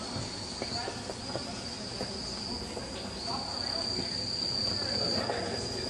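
A steady high-pitched insect trill that stops and starts, loudest a little after the middle, over a low background hum.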